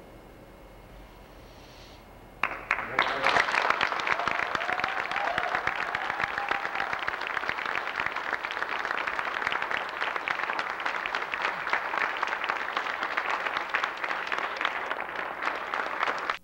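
Audience applauding. The clapping starts suddenly about two seconds in, holds steady, and stops abruptly at the end.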